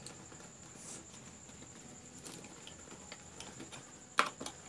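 Faint quiet, then a few sharp small clicks near the end: a screwdriver working the terminal screws of a plastic 5-pin socket.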